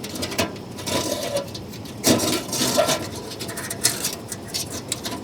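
Hinged stainless-steel panels of a Firebox Freestyle folding camp stove being folded and fitted together: scattered light metal clicks and clinks with short scrapes.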